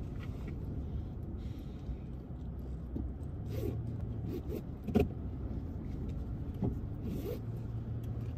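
A car's low, steady engine and road rumble heard from inside the cabin, with a sharp click or knock about five seconds in.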